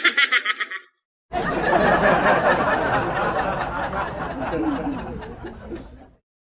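A short, quickly pulsing high-pitched giggle, then a crowd of people laughing together for about five seconds, fading away near the end.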